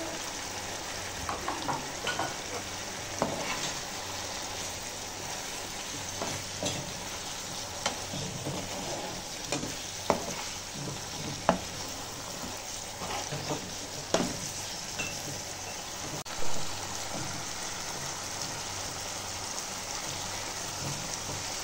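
Masala gravy with taro pieces sizzling steadily in a frying pan. A spatula scrapes and clinks against the pan every second or two, with one louder knock about three-quarters of the way through.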